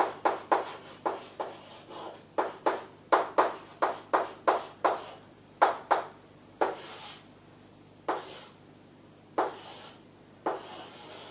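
Chalk writing on a chalkboard: a quick run of sharp taps and short strokes as characters are written, then a few longer scraping strokes about a second or more apart as lines are drawn.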